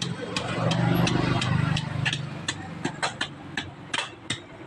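A small hammer taps repeatedly, about two to three sharp blows a second, peening the metal pins that hold wooden handle scales on a meat cleaver's tang. An engine hums in the background, loudest about a second in, then fades away.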